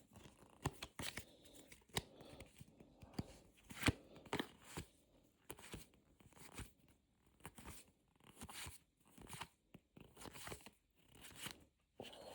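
Pokémon card booster pack being torn open and its cards handled: irregular faint crinkles, rips and soft clicks.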